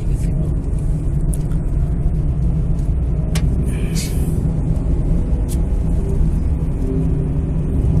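Steady low rumble of a vehicle on the move, road and wind noise, with a few brief clicks and a short hiss partway through.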